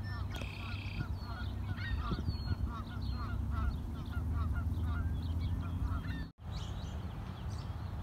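A chorus of many birds calling at once: short hooked calls repeating several times a second, with a buzzy blackbird-like trill about half a second in, over a steady low rumble of wind. The sound cuts out for an instant about six seconds in.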